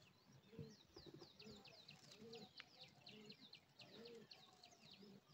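Faint bird calls: pigeons cooing low now and then, under a steady stream of high, quickly falling chirps, several a second.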